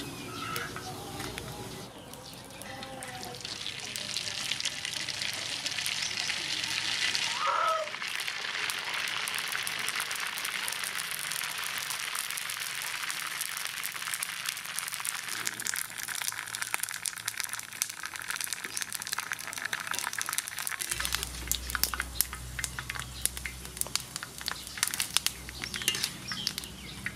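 Dried pork skin deep-frying in hot oil: a steady sizzle that turns into sharper, denser crackling and popping in the last few seconds.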